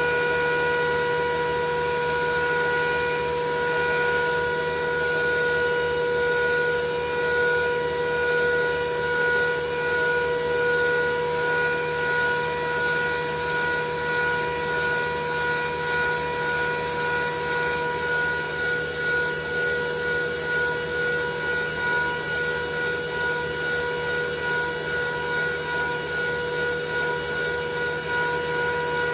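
Felder Format 4 thickness planer running with a steady high whine over a rushing noise, its loudness waxing and waning slightly in the second half.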